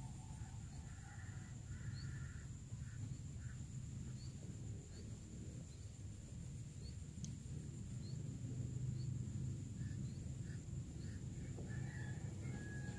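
Faint open-air ambience: a steady low rumble with scattered short, high bird chirps and a few brief mid-pitched calls.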